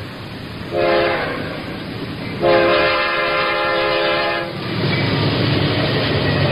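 Train sound effect: the horn sounds twice, a short blast and then a longer one, followed by the steady rumble of the train running along the track.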